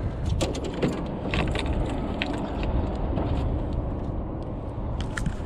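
Steady low rumble of wind on the microphone, with scattered light clicks and taps from a bass being handled and hooked onto a handheld digital fish scale.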